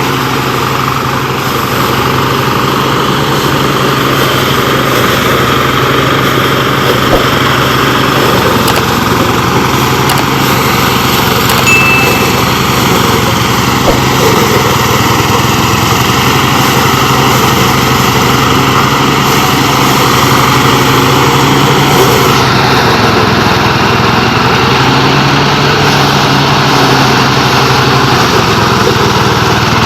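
Engine of a rice harvesting machine running steadily at constant speed.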